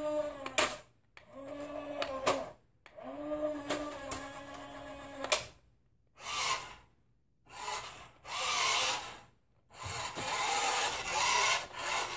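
Toy RC car's small electric motor and gears whining in three steady runs of one to two and a half seconds, each starting with a quick spin-up, as the car morphs open to raise its missile launcher. From about six seconds on, five shorter, harsher bursts of motor and gear noise follow as the car drives in spurts.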